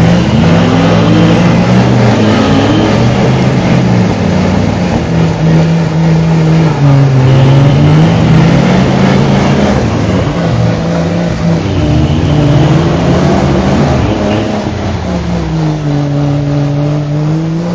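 Vehicle engines revving up and down repeatedly under load while pulling a Jeep stuck deep in mud; the pitch rises and falls in long swells every few seconds.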